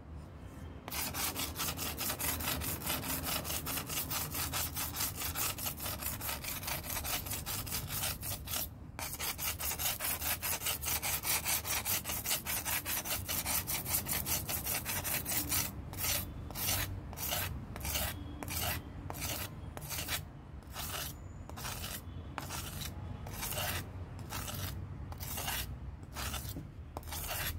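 Steel knife blade stroked back and forth against a handheld abrasive-sheet sharpener (coarse 120- and 180-grit sheets on a wooden strip), giving a rasping scrape. The strokes come fast and run together at first, with a brief break about nine seconds in, then slow to separate strokes about two a second from about halfway on.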